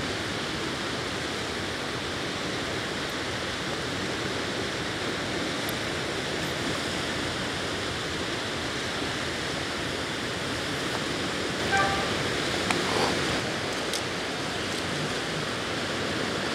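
Steady rushing wash of small waves on a wide river. About twelve seconds in, a brief pitched call and a few short knocks stand out over it.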